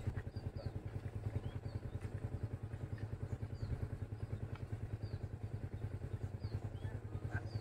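A small engine idling steadily with a rapid, even low putter. Short high chirps recur faintly over it.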